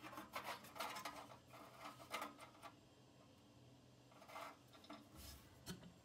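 Faint scraping and rubbing as a small disc-style limit switch is worked by hand into its notch in the furnace's sheet metal. It comes in short bursts through the first two and a half seconds, then a few light scrapes near the end.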